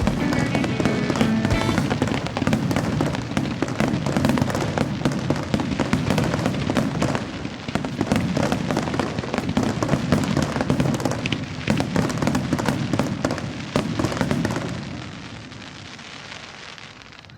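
Aerial fireworks going off in a dense barrage of bangs and crackling, with music playing along, then dying away about fifteen seconds in.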